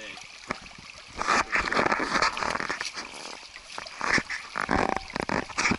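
Wooden stick jabbed repeatedly into a shallow rocky creek, splashing the water and knocking against stones in quick, irregular strokes that start about a second in.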